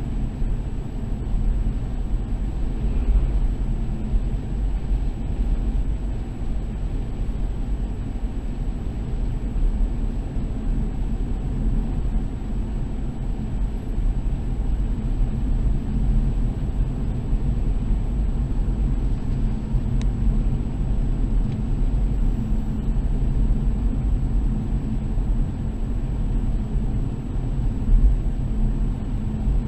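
Car driving along a concrete-slab road: a steady low rumble of engine and tyres with no breaks.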